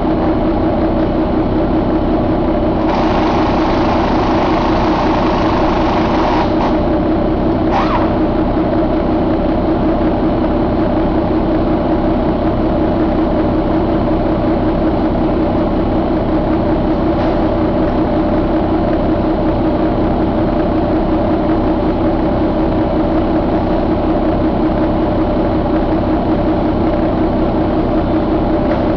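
Paccar MX13 inline-six diesel engine running steadily. A hiss rises over it for about three and a half seconds a few seconds in, with a brief second hiss shortly after.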